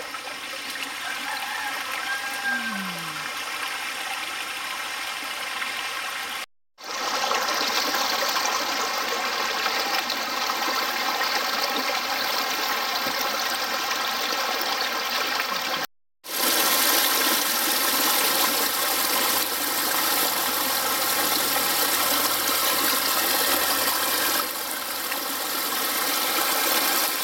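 Shallow stream water running over rocks, a steady rushing, with hands working in the water. It drops out twice briefly where the clips are cut.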